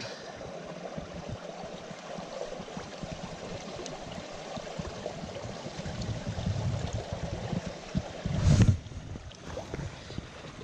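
Small mountain stream running with a steady rushing babble, with a brief louder burst of noise about eight and a half seconds in.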